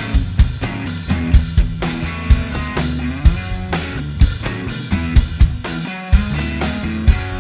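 Rock band playing an instrumental passage: drum kit with regular sharp hits over held bass notes, with guitar.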